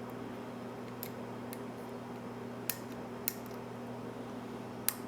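Lock pick and tension wrench working the pins of a mortise pin-tumbler cylinder during single-pin picking: about five small, sharp metallic clicks, spaced irregularly, over a steady low hum.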